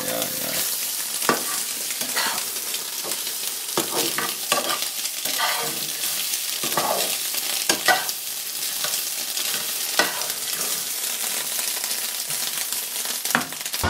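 Chopped food sizzling in a frying pan with a steady hiss, broken by frequent irregular scrapes and knocks as it is stirred in the pan.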